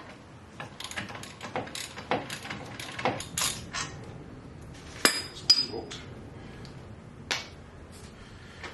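Socket ratchet clicking in short strokes as a brake caliper bolt is backed out, then sharp metal clinks of tools or the bolt with a brief ring, two close together about five seconds in and one more near the end.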